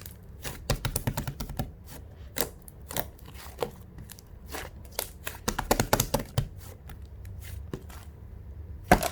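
Hands poking, pressing and stretching a failed batch of yogurt slime, giving irregular sticky clicks and small air-pocket pops. The clicks come thickest about a second in and again around six seconds, with one sharp pop near the end.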